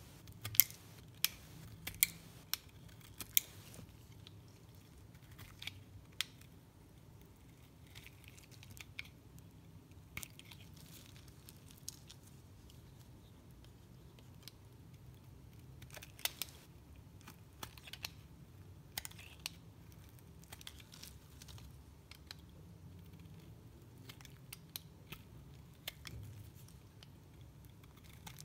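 Snap-off utility knife blade shaving flakes off a block of dry soap: crisp crunching clicks, the sharpest in the first few seconds and again a little past the middle, with quieter scraping cuts in between.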